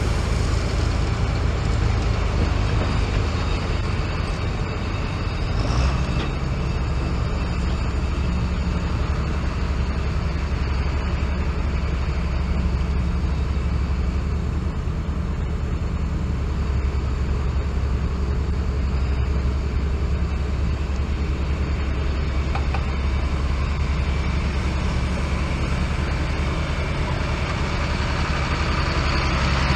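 Tractor's diesel engine running steadily, with a change in its note about six seconds in.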